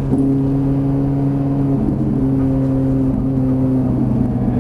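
Ferrari 458 Italia's V8 engine heard from inside the cabin, holding steady moderate revs through a slow corner, with a couple of slight wavers in pitch.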